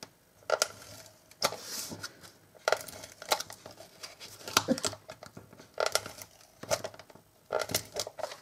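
Cardstock being handled while Fast Fuse adhesive is applied with its handheld applicator: irregular short clicks and paper rustles.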